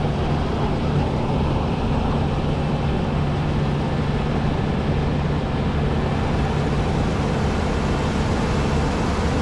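New Holland CX8070 combine harvester running steadily while threshing barley: an even low engine hum over the noise of the machine working, with no change in pitch or loudness.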